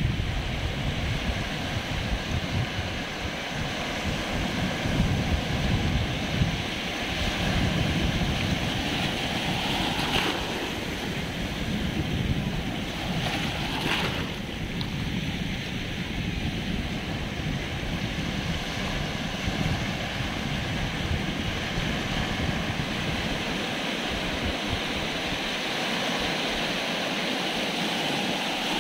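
Small sea waves breaking and washing over shallow water and rocks at the shoreline, a steady hiss of surf. Wind buffets the microphone with a low rumble that eases near the end.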